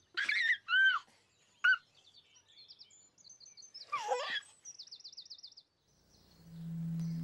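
Birds chirping in short, separate calls: several quick arched chirps, a trill about four seconds in, then a rapid high warble. A low steady tone swells in near the end.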